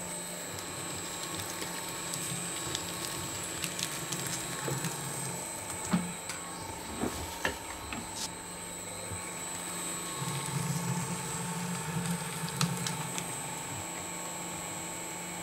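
Electric paper shredder running with a steady motor hum and high whine, with scattered clicks and crackles as paper is fed through its cutters to clear sticky goo from them. The low hum swells for a couple of seconds past the middle.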